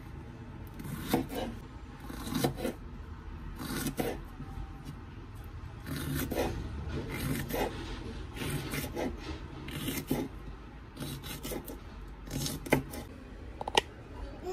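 Kitchen knife slicing a jalapeño pepper into rings on a bamboo cutting board: short repeated cutting strokes with the blade scraping and tapping the wood, about one cut a second.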